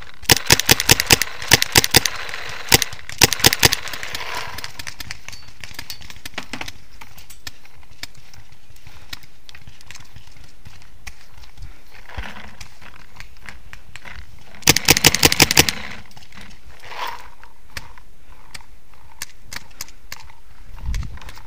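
Paintball marker firing in quick strings of shots, several sharp pops a second: two strings in the first four seconds and another about fifteen seconds in.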